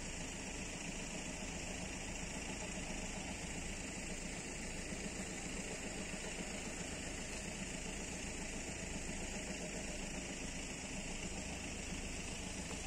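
Steady low engine hum with a constant hiss, from road vehicles idling at the crossing. No bell or warning rhythm is heard.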